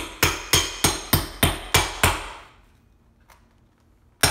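Hammer blows on a metal bar wedged into the lid of a plywood crate, each with a metallic ring: about eight strikes at roughly three a second, a pause of about two seconds, then a new run of strikes starting near the end.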